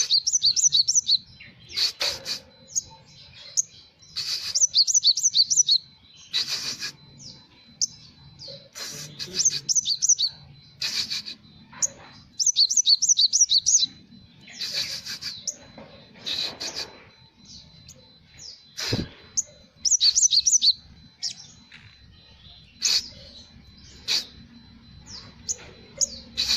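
Olive-backed sunbird (sriganti) singing: bursts of rapid, high, repeated chirping phrases every second or two, with sharp single calls between them, its song filled with learned Java sparrow (gelatik) phrases.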